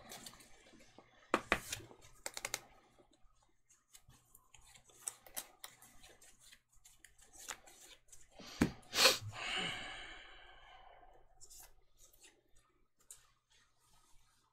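Sleeved trading cards being shuffled and handled: scattered light clicks and snaps, with one sharper snap about nine seconds in, trailed by a short fading tone.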